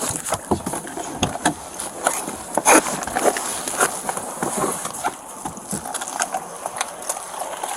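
Irregular footsteps and knocks and rustles of clothing and gear rubbing on a body-worn camera's microphone as the wearer moves.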